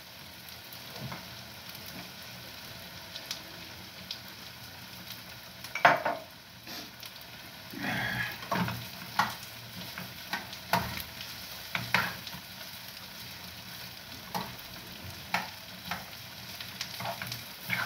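Sausage pieces frying in a metal pan with a steady sizzle, while a metal spoon stirs them and clinks and scrapes against the pan every second or so, loudest about six seconds in.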